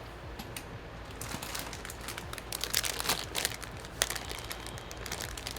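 Irregular crinkling and small clicks of hands and tools working on a laptop's DC jack wiring, over a steady low hum.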